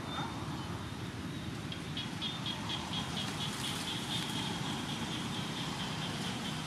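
Outdoor ambience with a steady low rumble. About two seconds in, a fast series of short, high chirps on one pitch begins, about five a second, and runs until near the end.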